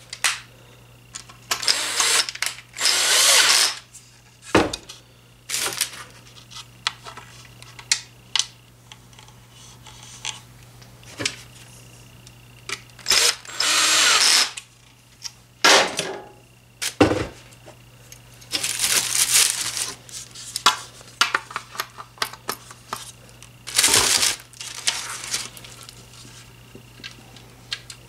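Power drill driving screws into ceiling fan blade irons, in about five short runs of a second or so each, on a low torque setting, with clicks and clatter of screws and parts being handled between the runs.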